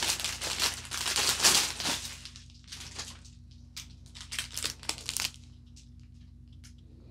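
Crinkling and rustling of the plastic bags of diamond-painting drills as they are handled. It is dense for about the first two seconds, then thins to a few scattered crinkles and clicks and dies away about five seconds in.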